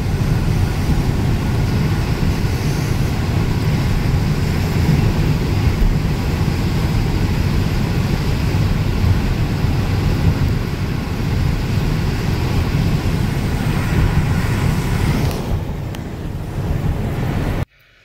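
Steady road and tyre noise inside a car cabin driving on a snowy highway: a low rumble with a lighter hiss over it. It cuts off abruptly just before the end.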